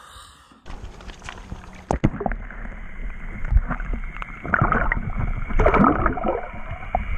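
Water sloshing, gurgling and splashing around a camera held partly under the surface as a largemouth bass is released and kicks away, with louder splashes in the second half.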